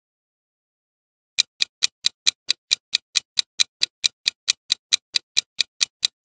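Quiz countdown timer's clock-tick sound effect: after about a second and a half of dead silence, short sharp ticks start and run on evenly at about four and a half a second.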